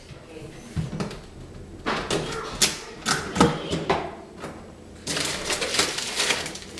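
Rummaging through an open refrigerator: containers and items on the shelves knock and click irregularly. From about five seconds in, the plastic wrapping of a cheese package crinkles as it is handled.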